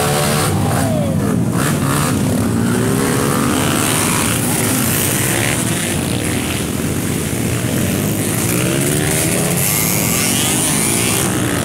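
Several enduro dirt bikes revving and pulling away one after another, engine pitch rising and falling over the steady din of other motorcycles running.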